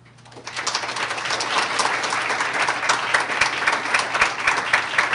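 Audience applauding, starting about half a second in and quickly building to steady, dense clapping.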